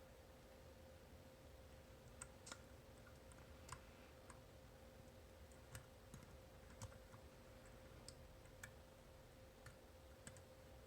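Faint, irregular clicks of a homemade disc-detainer pick turning the discs inside an Abloy Classic cam lock, about a dozen over several seconds, with a faint steady hum beneath. The picker is getting no feedback from the discs.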